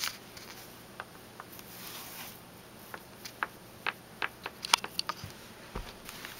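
Scattered light clicks and rustles from a Yorkshire terrier playing with a plush turtle toy. The clicks come quickest from about three to five and a half seconds in, with the sharpest just before five seconds.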